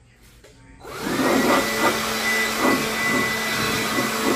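Handheld vacuum with a long crevice nozzle switched on about a second in, its motor running steadily with a high whine over a low hum.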